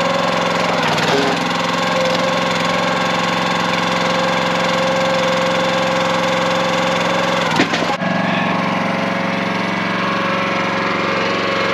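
The small gasoline engine of a Countyline 25-ton log splitter running steadily. There is a sharp knock or crack about seven and a half seconds in, and after that the engine note shifts.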